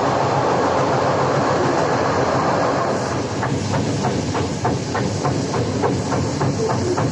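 ED4M electric train car rolling on the rails with a steady rumble. From about three seconds in, a regular knock sets in at roughly three to four strikes a second, the sound of a wheel flat on a badly worn car.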